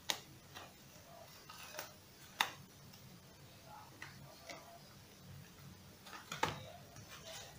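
Scattered sharp clicks and light handling noises as hands press and work the fabric of a scuba BCD around its dump-valve opening. The loudest clicks come at the start, about two and a half seconds in, and about six and a half seconds in.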